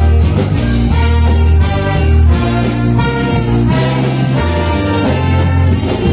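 A wind band playing live, with saxophones, brass and an electronic keyboard over a steady, repeating bass line.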